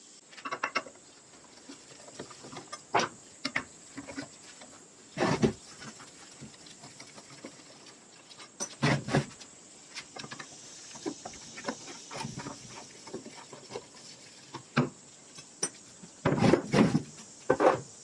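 Metal parts of an old Handy Junior button press clicking, clinking and knocking as the press is taken apart by hand and pieces are set down on a wooden workbench. The knocks come at irregular intervals, some in quick clusters, with the loudest ones near the end.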